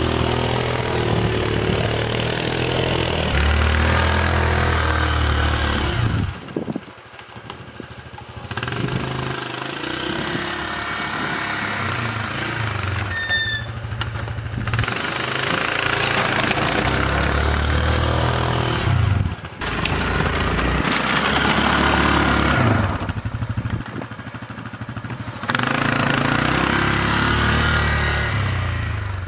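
ATV engine pushing snow with a front-mounted plow, surging up and easing off over and over as the machine works back and forth; it drops low twice, once about a third of the way in and again near the end.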